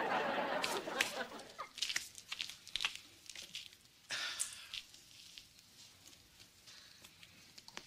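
Metal bar stool knocking and clinking as it is set upright on the floor and sat on: a cluster of light knocks in the first couple of seconds, then a few scattered clicks.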